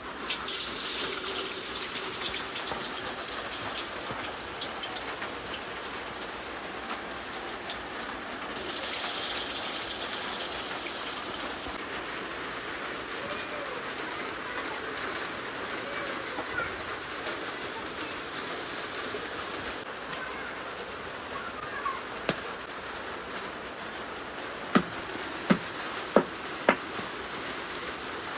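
Steady rain falling, an even hiss. A few sharp knocks or taps stand out in the last few seconds.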